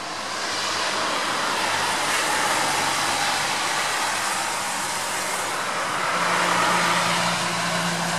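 Road traffic passing: an even hiss of tyres that swells and fades twice, with a low engine hum coming in near the end.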